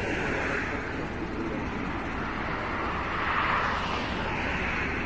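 Road traffic passing by: a steady tyre-and-engine hiss that swells and fades as vehicles go past, about three times.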